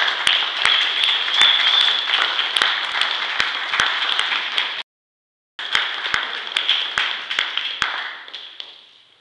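Small audience applauding, a dense patter of hand claps. The sound cuts out completely for under a second in the middle, then the clapping fades out toward the end.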